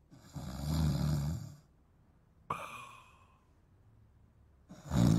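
Cartoon snoring from a sleeping man: a long, low snore on the in-breath, then a shorter breath out whose pitch falls, and another loud snore starting near the end.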